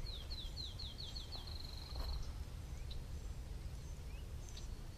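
A songbird singing a quick run of about six falling whistled notes that runs into a short trill, lasting about two seconds, over a faint low rumble.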